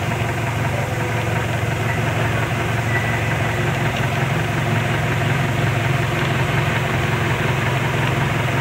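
Steady engine drone and road noise of a moving vehicle, heard from inside its cabin.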